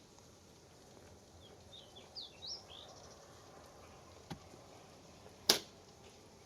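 Quiet background with a few faint high chirps about two seconds in, a light click after four seconds, then one loud, sharp crack about five and a half seconds in.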